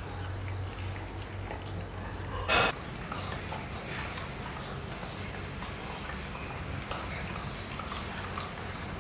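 Pomsky puppy chewing and licking at a frozen stuffed Kong Extreme rubber toy: scattered small wet clicks and gnawing sounds over a steady low hum, with one short, louder sound about two and a half seconds in.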